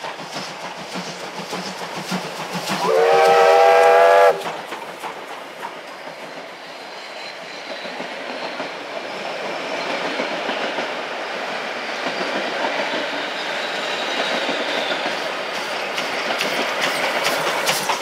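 Victorian Railways D3 class steam locomotive sounding one whistle blast about three seconds in, lasting about a second and a half and falling slightly in pitch. Its train of wooden passenger carriages then rolls past with the clickety-clack of wheels on the rail joints, growing louder toward the end.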